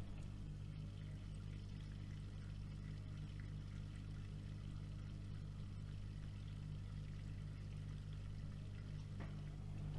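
AEG Öko-Lavamat washing machine running mid-programme: a steady low hum with faint water sounds.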